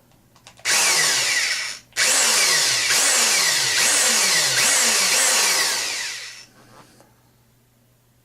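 Electric drill with a 1/16-inch bit boring a mounting hole into the wooden edge of a guitar body, in two runs: a short burst about a second in, then a longer run of several seconds after a brief stop. Its whine keeps sliding down in pitch as it bites into the wood.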